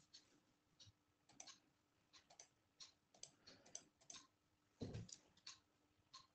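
Near silence with faint, irregular clicks a few times a second and one soft knock about five seconds in.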